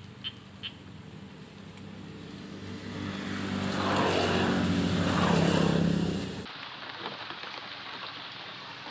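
A motor vehicle passing close by on a road: its engine grows steadily louder over a few seconds, its pitch sliding as it goes by, then cuts off suddenly about six and a half seconds in. A steady hiss remains after it.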